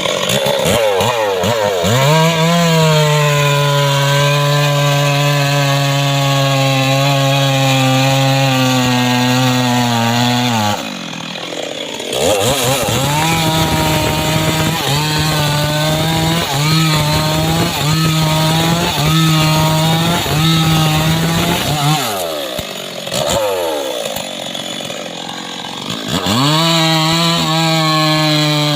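Homemade long-bar two-stroke chainsaw cutting mahogany. It revs up, holds at full throttle under load for about eight seconds, and drops back. It is then blipped about once a second for ten seconds, drops again, and revs back up near the end.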